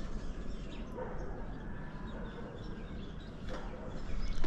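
Steady low background noise with faint, scattered short bird chirps.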